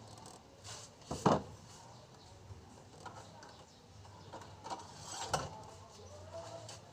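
Scattered metallic clanks and clicks of tools and parts being handled during work on a car engine, the loudest knock about a second in and another strong one about five seconds in, over a faint steady low hum.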